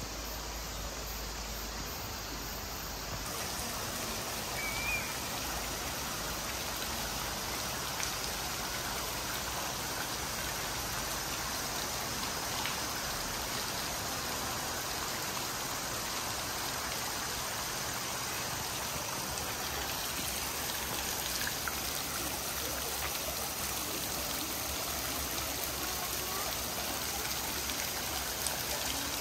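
Water spilling and dripping from the paddles of a large waterwheel: a steady splashing patter much like rain.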